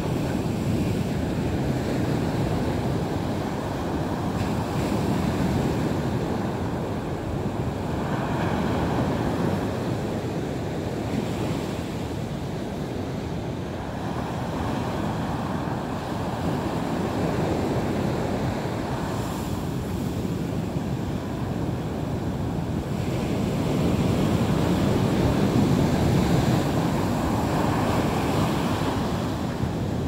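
Sea waves breaking and washing up a beach in a continuous rush of surf, swelling into louder surges every several seconds, with the biggest surge near the end.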